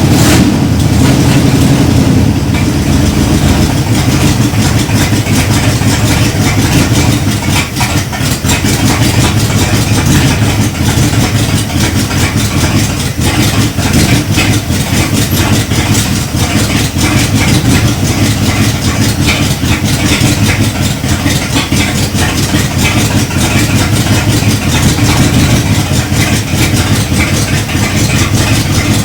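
1978 Dodge Power Wagon's engine idling steadily.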